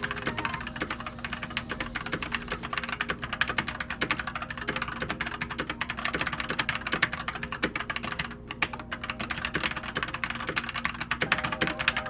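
Fast, continuous typing on a mechanical keyboard, the EOSU K658 used as the comparison keyboard: a rapid, uneven stream of key clicks, with a short pause about eight seconds in.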